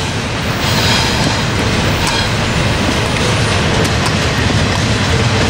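Norfolk Southern double-stack container train passing close by: a steady, loud rumble of wheels on rails, with a few sharp clicks scattered through it.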